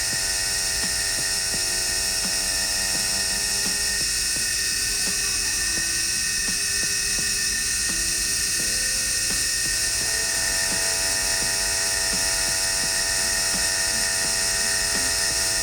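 High-speed milling spindle on a lathe's cross-slide milling attachment, running a V-profile fly cutter that is cutting a grip pattern into a small part: a steady high-pitched whine.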